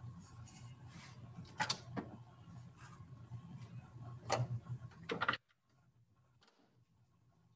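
A few scattered sharp clicks and taps over a low background hum. The hum drops away suddenly about five seconds in.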